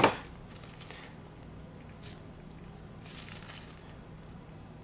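Faint handling noise from gloved fingers turning the small nut on a 6.0 Powerstroke fuel injector's spool valve. A light tick comes about two seconds in and a soft rustle about three seconds in, over a low steady hum.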